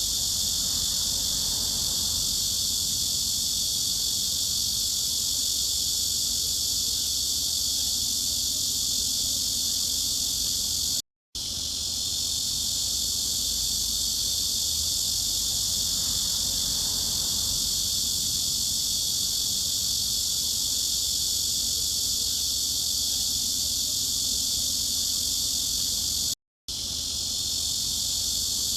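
Cicadas droning steadily, high-pitched and unchanging. The sound cuts out completely for a split second twice, about eleven seconds in and again near the end, and quickly comes back each time.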